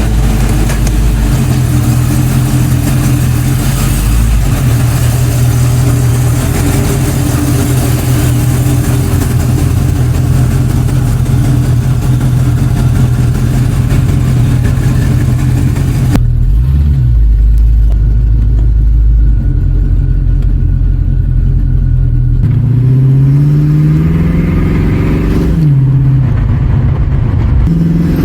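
Chevy Vortec 350 small-block V8 in a car under way, running steadily and then rising and falling in pitch a few times near the end as it accelerates and eases off. It runs smoothly with no misfire after new intake manifold gaskets cured a vacuum leak.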